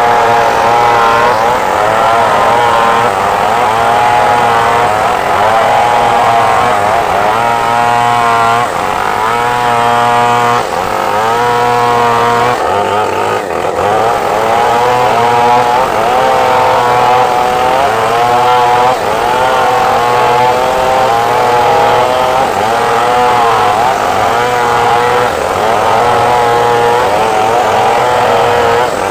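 Stihl MS 381 two-stroke chainsaw running at full throttle while ripping a large log lengthwise. Its pitch sags and recovers every couple of seconds as the chain loads up in the cut.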